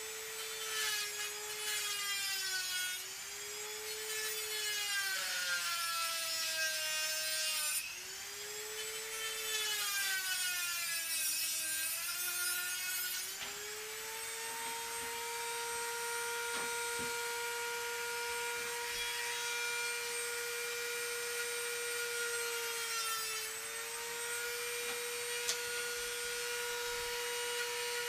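Dremel rotary tool with a cutting wheel whining at high speed. Its pitch sags and recovers several times over the first half as it cuts through a wooden pencil, then it runs steadily unloaded for the second half.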